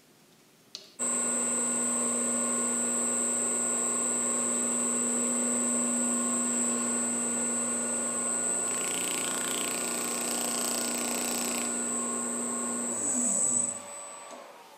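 Freshly rebuilt 2-horsepower three-phase electric motor running on a variable frequency drive at 60 Hz: a steady hum with a high-pitched whine, starting suddenly about a second in. Near the end the pitch falls as the drive ramps down, and the sound fades out.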